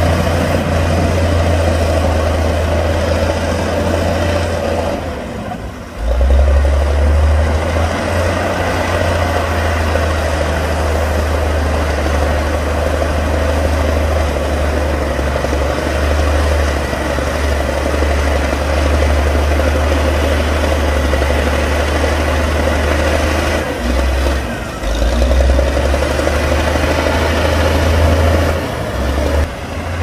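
Heavy diesel engine of earthmoving machinery running steadily with a deep rumble. The engine note dips briefly about five seconds in and again some six seconds before the end, then comes back strong.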